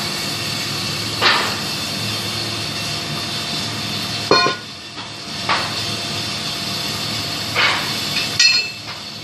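Pipe-bending machine at work: a steady mechanical hum, broken about five times by sharp metallic clanks and brief squeals of metal on metal.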